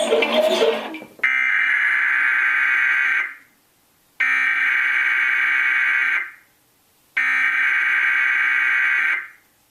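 Emergency Alert System SAME header: three electronic data bursts of about two seconds each, about a second apart, the digital code that opens an alert message. A short burst of noise comes in the first second, before the data bursts.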